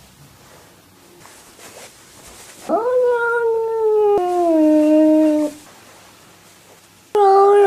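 Scottish Fold cat yowling in alarm: one long drawn-out call a little under three seconds in, sweeping up in pitch at the start and then sliding slowly down, followed by another yowl starting near the end.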